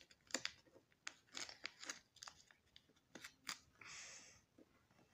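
Thin plastic card sleeve crinkling and crackling faintly in quick little snaps as fingers pick it open, with a short soft rustle about four seconds in as the card slides out.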